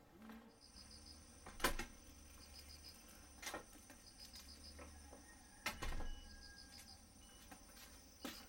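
Faint insect chirping: a steady high trill with short runs of chirps about every two seconds. A few sharp knocks break in, the loudest just under two seconds in.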